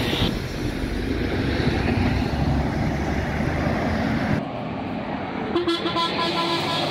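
Mercedes-Benz Citaro city bus passing close by, its engine and tyre noise making a dense low rumble. About five and a half seconds in, a steady horn note sounds and holds.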